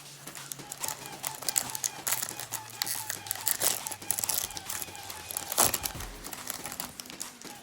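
Plastic wrapper of a Topps Chrome baseball card pack being torn open and crinkled: a run of crackling with one sharp, loud crinkle about five and a half seconds in.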